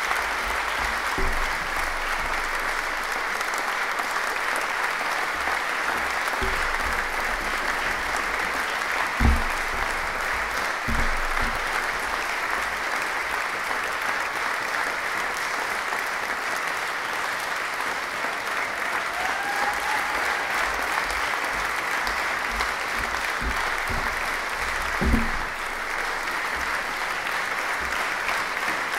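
Audience applauding steadily, with a few dull thumps about a third of the way in and again near the end.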